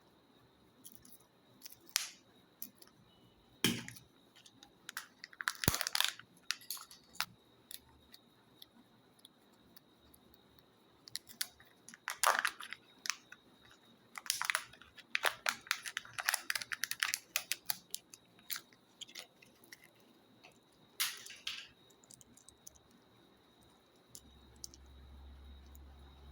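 Candy and toy-egg packaging being handled and opened close up: irregular crinkles, crackles and sharp clicks of foil wrappers and plastic capsules, in short bursts with quiet gaps between.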